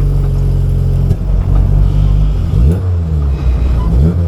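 Honda H22 four-cylinder engine running under way, steady at first, then revving up with rising pitch about two and a half seconds in and again near the end.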